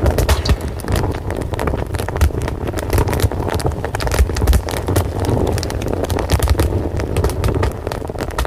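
Fire crackling: many sharp pops and snaps over a steady low rumble.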